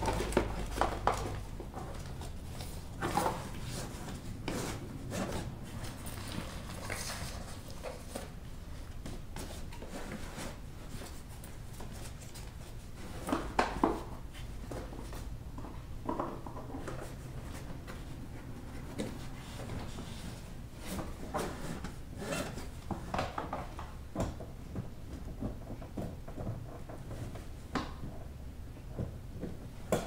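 Seat belt webbing being pulled and fed through a forward-facing car seat's belt path. Irregular rubbing and scraping, with scattered knocks of plastic and belt hardware; the loudest is a short cluster of knocks about halfway through.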